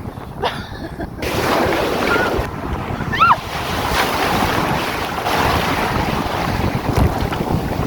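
Ocean surf with wind buffeting the microphone: a steady rush of water and wind. A short high cry rises and falls about three seconds in.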